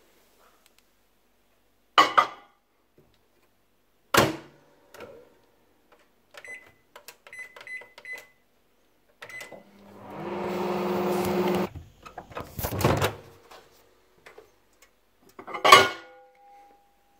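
Microwave oven in use: knocks as the bowl goes in and the door shuts, a run of short keypad beeps as the time is set, a brief spell of the oven running with a steady hum, then clunks and a loud click as the door is opened and the bowl taken out.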